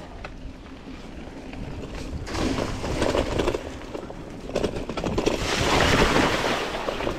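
Mountain bike tyres rolling over a dirt trail, then splashing through a shallow creek crossing, loudest about six seconds in.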